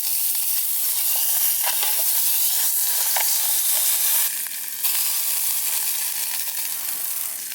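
Burgers sizzling as they cook: a steady high hiss with scattered small pops, a little quieter after about four seconds.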